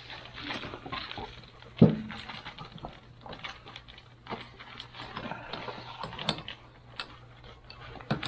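Scattered clicks and rustles of small engine parts being handled at a workbench, along with the crinkle of a plastic gasket bag, and one sharp knock about two seconds in. A steady low hum runs underneath.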